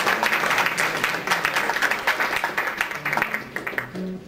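Room of people applauding with hand clapping, thinning and dying away near the end.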